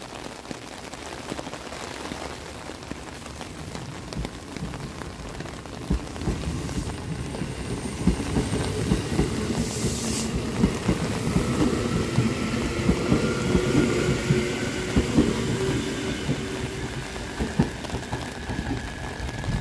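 A JR Kyushu 811 series electric train running past, its wheels clacking over the rail joints; the noise builds from about six seconds in and is loudest in the middle, with a faint whine rising in pitch over the second half. Rain hisses throughout.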